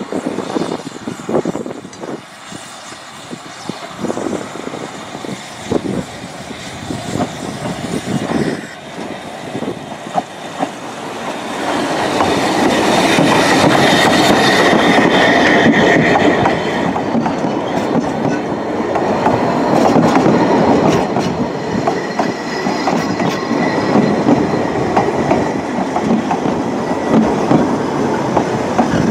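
Narrow-gauge steam train: a run of separate knocks as the locomotive pulls away, then from about twelve seconds in the coaches roll past close by, louder, wheels clattering on the rails with a thin squeal at times.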